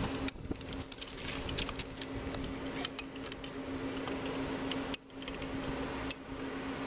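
Steady low hum over even background noise, with scattered light clicks and rustles. The level drops sharply twice, about five and six seconds in.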